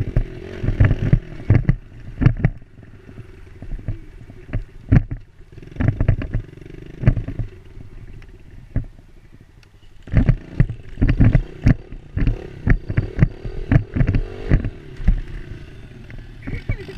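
Dirt bike engine running under the rider, heard from a helmet-mounted microphone, easing off and picking up again twice. Frequent sharp knocks and buffets on the microphone from bumps and wind.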